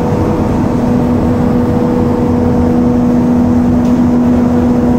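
Tea factory processing machinery running steadily, a loud continuous drone with a steady hum; a second, lower hum tone comes in about half a second in.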